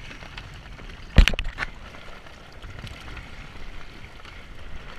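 Water sloshing and rushing around a Mirror dinghy's wooden hull as the boat heels over into a capsize, with a sharp thump about a second in, followed by a couple of lighter knocks.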